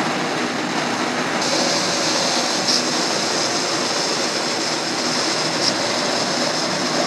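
Steady rushing noise, with a higher hiss joining about a second and a half in and a couple of faint clicks.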